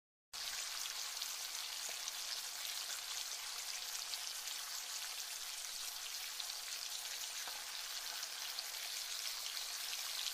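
Steady rain falling: a dense, even hiss of many fine drop ticks. It starts suddenly just after the start and cuts off abruptly at the end.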